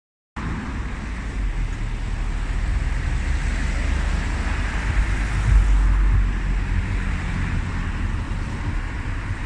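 Road traffic passing close by: a steady rush of tyre noise that swells to its loudest about halfway through and then eases, with wind buffeting the microphone.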